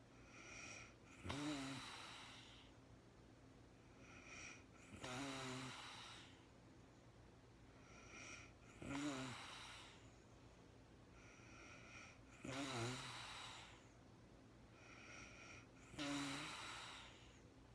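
A sleeping woman snoring in a slow, regular rhythm: five loud, rough snores, one about every three and a half to four seconds, each preceded by a shorter, softer breath.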